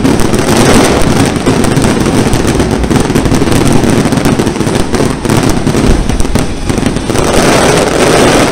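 A dense barrage of aerial fireworks: rapid, overlapping bangs and crackling that merge into a continuous roar, swelling again near the end.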